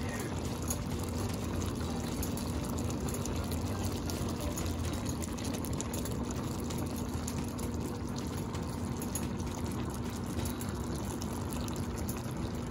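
Coconut-milk stew of squash, string beans and shrimp simmering in a pan: a steady bubbling with fine crackles, over a steady low hum.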